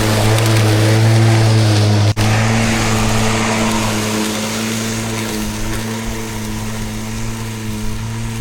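Battery-powered Milwaukee lawn mower running, its electric motor and spinning blade giving a steady hum and hiss as it cuts grass. The sound cuts out for an instant about two seconds in.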